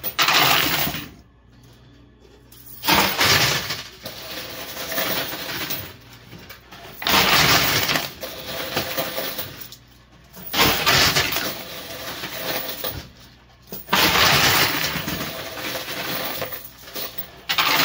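Quarters clattering in a coin pusher machine: a burst of jangling metal coins about every three to four seconds, with quieter gaps between.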